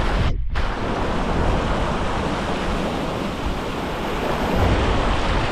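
Sea swell surging and washing over rocks at the water's edge, a steady rush of water, with wind rumbling on the microphone.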